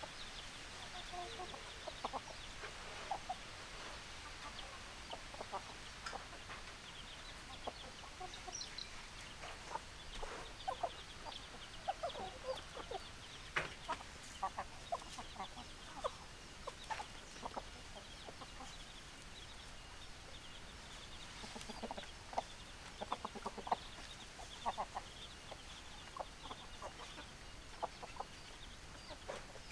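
Hens clucking: many short, scattered clucks over a steady faint background.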